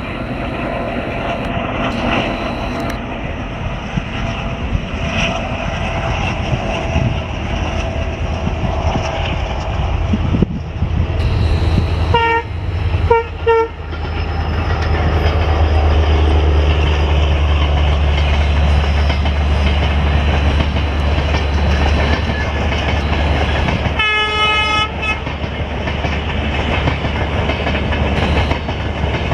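Train running with a steady low rumble that grows heavier about halfway through; its horn gives three short toots in the middle and one blast of about a second near the end.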